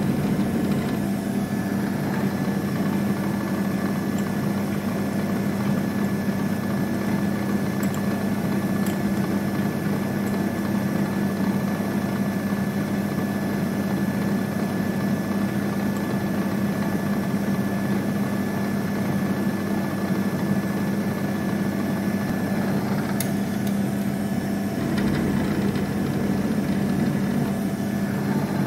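Mini milling machine running steadily, its spindle motor giving a constant hum with a high whine. A click about 23 seconds in, then a short change in the sound.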